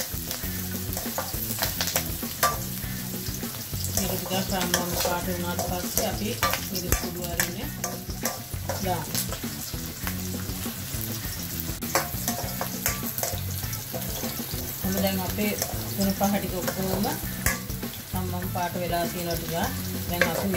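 Sliced onions, green chillies and curry leaves sizzling in hot oil in a metal wok while being stirred with a spatula, which scrapes and knocks against the pan many times at irregular intervals.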